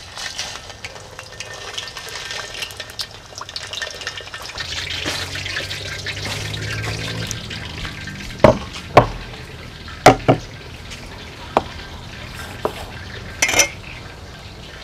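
Fish frying in hot oil in a wok, a steady sizzle. From about eight seconds in come a string of sharp knocks as a wooden chopping board and a pan are set down and worked on a wooden table.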